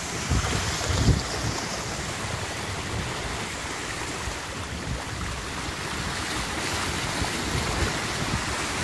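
Steady rush and hiss of water churning in the wake of a J/88 sailboat moving fast under sail, with a gust of wind on the microphone about a second in.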